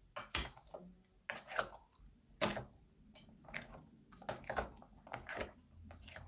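Plastic spatula stirring a wet, sticky slime mixture in a bowl: irregular sticky clicks and crackles, several a second.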